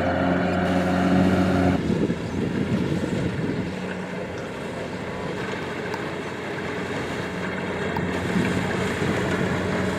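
Kubota DC-70 rice combine harvester engine running steadily. About two seconds in, the sound changes abruptly to a fainter, noisier machine rumble, with some wind on the microphone.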